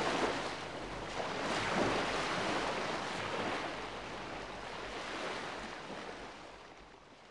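Ocean surf breaking and washing, a steady rush of waves that fades out gradually near the end.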